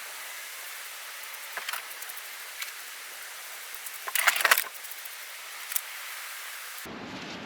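Steady hiss of rain on tent fabric, with scattered light clicks and a short, louder clatter of handled gear about four seconds in. Near the end the sound changes abruptly to a lower, rumbling background.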